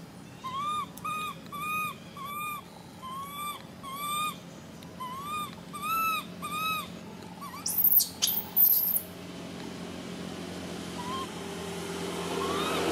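Baby long-tailed macaque crying: a run of about a dozen short, arching whimper calls, roughly two a second, then a few very shrill, loud squeals about eight seconds in, and one faint call near the end.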